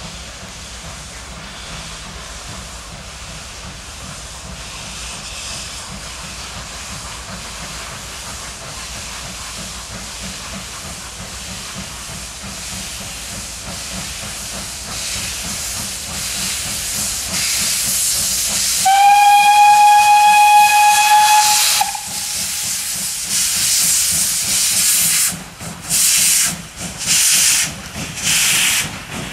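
Double-headed steam locomotives approaching and passing with a freight train: a steady hiss of escaping steam that grows louder, one long steam whistle blast about 19 seconds in, then loud rhythmic steam blasts a little more than once a second as the engines pass close by.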